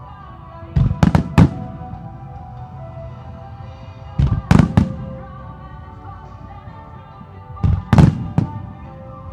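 Aerial firework shells bursting in three quick volleys of three or four sharp bangs each, about three and a half seconds apart. Steady music plays underneath.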